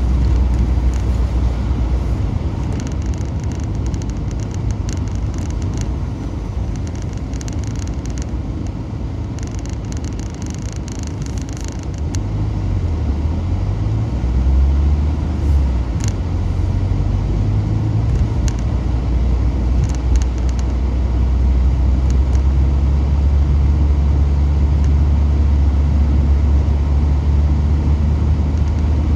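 Car engine and tyre rumble heard from inside the cabin while driving on a snowy street. The engine tone shifts in pitch about twelve to sixteen seconds in, then runs steadier and a little louder.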